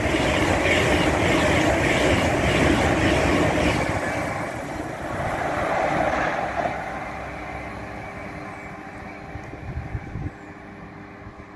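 A GWR Intercity Express Train (Class 800/802) passing close at speed: the rush of its wheels on the rails and air along the coaches, loud for the first few seconds, then fading as it goes away. As it fades, the steady hum of the lineside electrical sub-station comes through.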